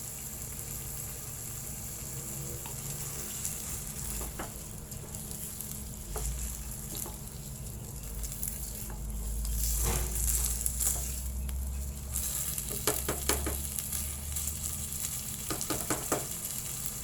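Chicken, garlic and ginger sizzling in a pot as glutinous rice is stirred in, with a spoon clicking and scraping against the pot now and then, most often near the end. A low rumble runs through the middle few seconds.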